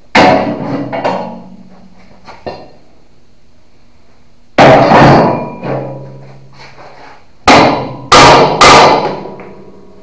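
Hammer blows on the steel skid-steer bucket and its cutting edge, each strike ringing on after it. There is one blow at the start, another about halfway through, and three in quick succession near the end, about half a second apart.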